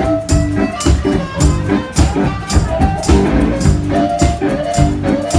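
Live blues-rock band playing: a steady driving beat with sharp percussion hits about three times a second, like a tambourine or hi-hat, under sustained instrument notes.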